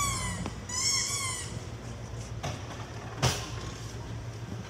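Two short, high-pitched squeals, each rising and falling in pitch, in the first second and a half, over a low steady hum; a sharp knock about three seconds in.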